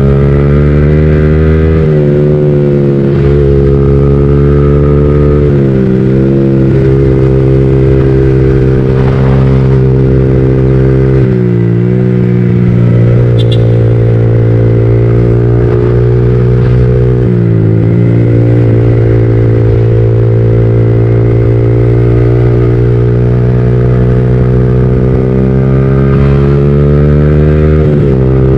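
Yamaha MT-15's 155 cc single-cylinder engine, breathing through an aftermarket full-system exhaust, running at a steady cruise under way. The note briefly dips and picks back up about five times.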